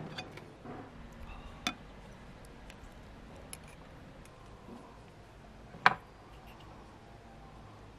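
A metal spoon and fork clinking against a ceramic soup bowl while eating: a light clink under two seconds in, a sharper one near six seconds, and faint ticks between.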